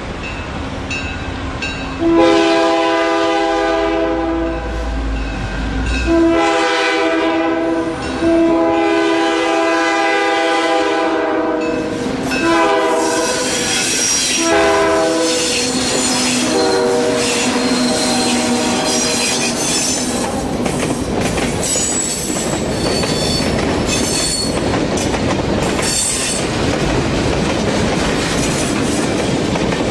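Diesel freight locomotive sounding its air horn in a series of long blasts as it approaches and passes, the horn lower in pitch in the last blast. Then the freight cars roll past with a steady clickety-clack of wheels on rail joints.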